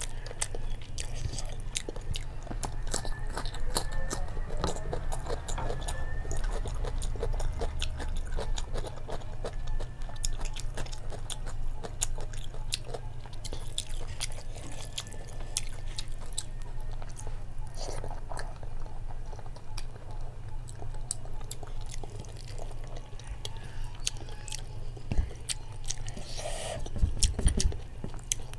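Close-up chewing of a mouthful of rice and jackfruit-and-prawn curry eaten by hand, with many small wet mouth clicks throughout.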